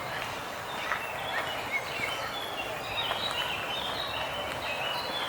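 Birds calling in a rapid run of short, high chirps that grow busier about a second in.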